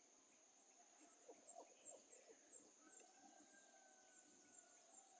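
Faint forest wildlife chorus: a steady, high, rapidly repeating chirping runs throughout, a quick run of short low bird calls comes about a second in, and a single long steady whistled note follows.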